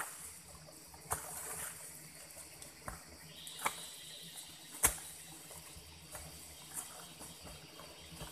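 Long-handled digging tool chopping into loose soil: a series of short, uneven thuds with dirt scattering, the loudest about five seconds in.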